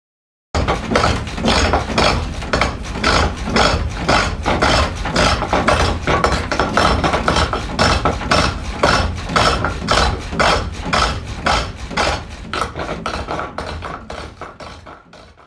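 Spring-pole lathe in use: a gouge cutting a spinning wooden stile in a fast run of short, sharp strokes over a low thudding from the treadle and pole. It starts suddenly and fades out near the end.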